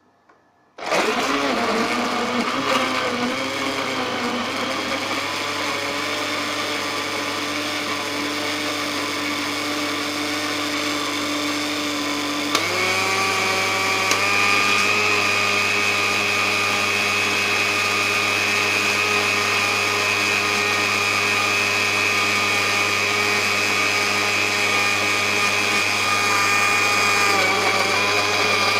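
Electric countertop blender switched on, its motor running steadily as it blends a banana milkshake. About twelve seconds in, with a click, its note changes and it runs a little louder.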